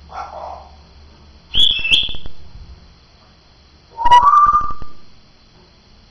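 African grey parrot whistling: a loud, high two-note whistle about a second and a half in, then a lower whistle that rises slightly at about four seconds.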